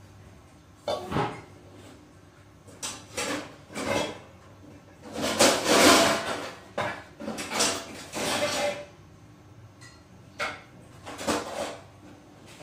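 Kitchen handling clatter: irregular knocks and scrapes of dishes and fittings being moved, with the longest and loudest stretch about halfway through.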